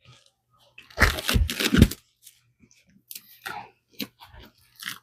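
Book packaging being torn open by hand: a loud tearing rip about a second in, then scattered crinkling and clicking as the wrapping is worked loose.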